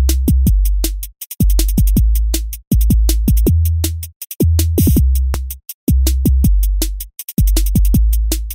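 Electronic dance music with a drum-machine beat: sharp clicks over deep bass, repeating in phrases of about a second and a third, each broken by a short dropout.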